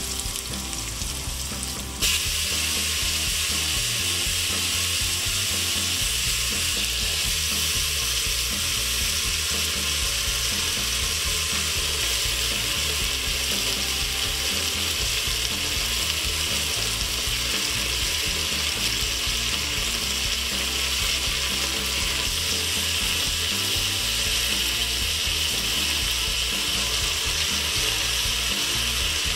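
Hot oil sizzling in a stainless pressure cooker as a tempering of cumin, garlic and dried red chillies fries and chopped vegetables go in on top. The sizzle grows suddenly louder about two seconds in, then holds steady.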